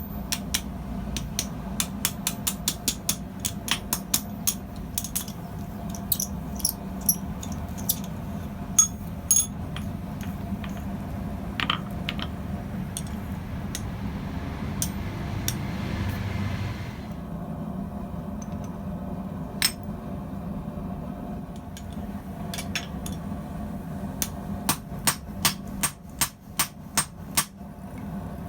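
Blacksmith's hammer striking hot steel tubing on an anvil while forging a pintle hinge, in runs of about three blows a second at the start and near the end with sparser blows between. A hiss rises midway and cuts off suddenly, over a steady low hum.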